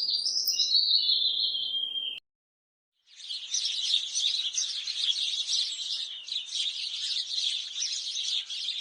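A bird sings a high whistled phrase that cuts off abruptly. After a second of dead silence, a dense chorus of many small birds starts, a constant high twittering of overlapping chirps.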